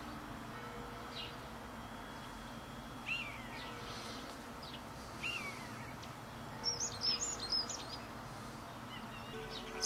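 Small songbirds giving short, scattered chirps, with a quick run of high, thin calls about seven seconds in, over a steady background hiss.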